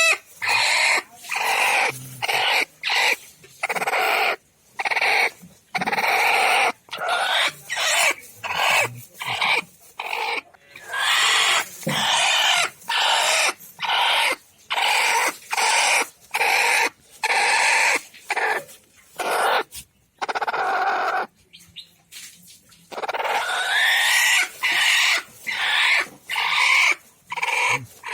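Chickens calling over and over, each call about half a second to a second long, with short gaps between them and a longer pause near the middle.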